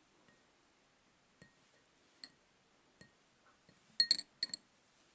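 A metal spoon clinking against a glass: a few light clinks, then a quick run of louder clinks about four seconds in.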